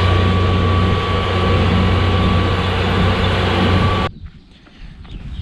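Tractor engine running steadily: a loud low hum with a steady high whine. It cuts off abruptly about four seconds in, leaving a much quieter background with faint scattered clicks.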